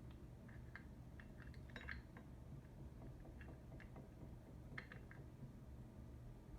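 Faint, scattered metal clicks and light clinks of a reproduction hand crank being fitted onto the boss of a Singer 28 sewing machine.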